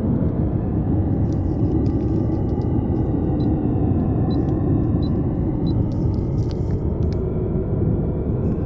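Steady low rumbling noise, with faint scattered clicks and a few faint high beeps near the middle.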